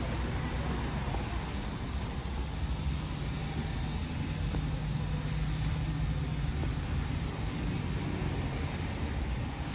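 Street traffic noise: a steady low rumble of engines and tyres, with one vehicle's engine hum swelling for a few seconds in the middle.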